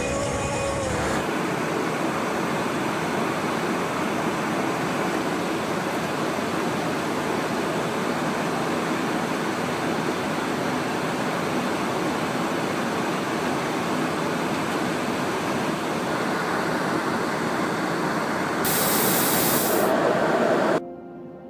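Steady rushing noise of jet aircraft, without a clear engine tone, turning into a brighter hiss for about a second near the end before cutting off suddenly.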